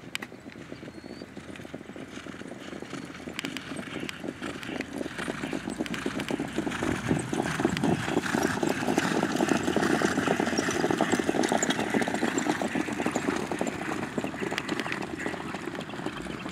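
Hoofbeats of a group of harness horses trotting past on a dirt track, a dense rapid drumming with the light rattle of their carts. It builds as the group approaches, is loudest around the middle, then eases slightly as they move away.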